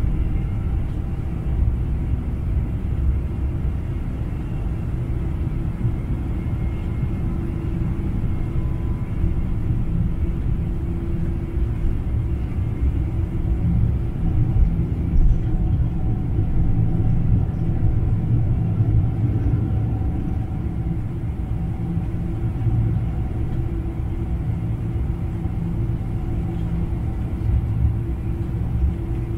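Boeing 747-400's General Electric engines at takeoff thrust, heard from inside the cabin over the wing through the takeoff roll and liftoff: a steady deep rumble with a low hum that grows stronger about halfway through.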